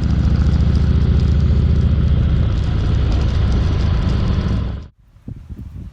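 Harley-Davidson motorcycle's V-twin engine running steadily, loud and low-pitched, cut off abruptly about five seconds in; then faint wind noise.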